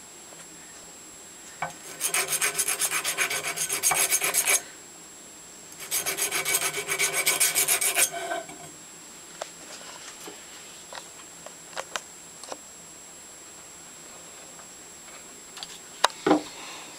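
Hand file rasping across a small metal part in two bouts of quick back-and-forth strokes, each about two and a half seconds long, with a pause between. A few light taps follow, then a sharp metallic clack near the end.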